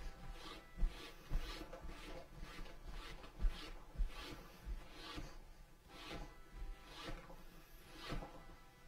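Repeated rubbing strokes of a cloth on leather, roughly one a second, with soft low knocks in between.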